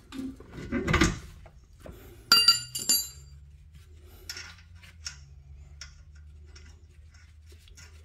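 Steel hand tools and parts being handled: a rustle of handling, then two or three sharp metallic clinks that ring briefly about two and a half seconds in, followed by a few small ticks.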